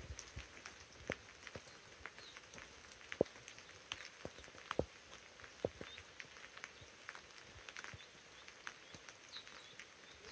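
Light rain: scattered drops ticking irregularly close by, over a faint steady hiss, with a few sharper taps between about three and six seconds in.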